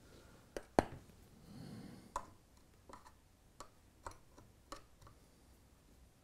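Metal teaspoon tapping and scraping against model railway track and loose ballast while ballast is worked in between the sleepers: a series of short, sharp clicks, roughly one every half second to second, the loudest about a second in.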